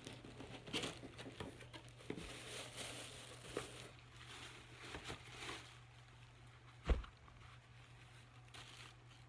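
Cardboard shoebox being opened and its wrapping rustling and crinkling as a sneaker is unwrapped, with scattered small taps and clicks. A single thump about seven seconds in, then only faint rustling.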